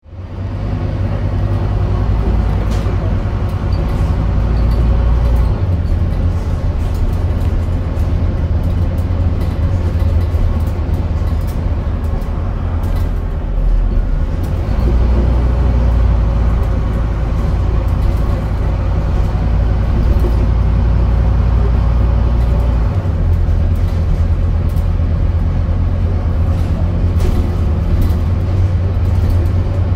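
Scania N230UD double-decker bus running on the road, heard from inside the passenger saloon: the low drone of its Scania DC09 9-litre five-cylinder diesel engine, whose note shifts three times, with scattered light clicks and rattles.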